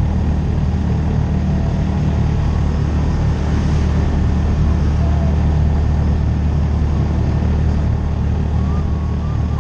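Side-by-side UTV's engine running steadily as it drives along a paved road: a loud, even low drone.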